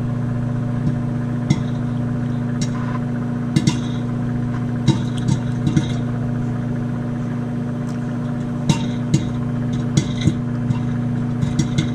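Microwave oven running with a steady low hum while popcorn kernels pop inside a microwave popcorn popper: sharp, scattered pops at irregular intervals, coming a little more often in the second half.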